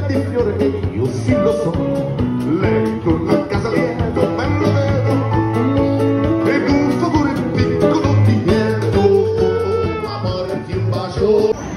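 A live street band playing: guitar and drum kit with keyboard, a steady beat under the melody.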